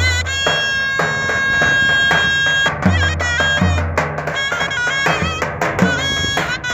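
Davul and zurna playing together: the zurna carries a reedy, ornamented folk melody with a long held high note in the first half, over deep strokes of the double-headed davul bass drum beaten with its mallet.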